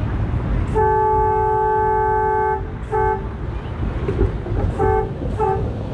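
Trolley horn sounding: one long blast of about two seconds, then a short toot, then two more short toots close together. A steady low rumble of the trolley running lies underneath.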